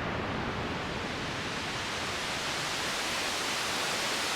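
Synthesized ocean-wave sound made from filtered noise in a VCV Rack patch: a steady hiss like surf that grows brighter over the first couple of seconds, as if a wave is swelling.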